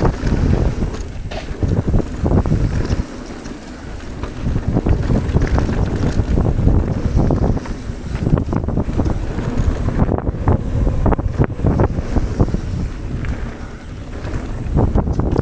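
Wind buffeting an action camera's microphone while riding a mountain bike downhill, a heavy rumble that gusts and eases, with tyres rolling over the dirt trail and scattered ticks and rattles from the bike. It eases briefly about three seconds in and again near the end.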